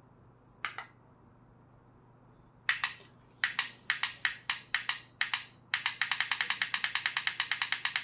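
Button on a handheld wireless LED-controller remote clicked repeatedly, stepping up the strip's running speed: a double click, a few single clicks, then a fast even run of about six clicks a second.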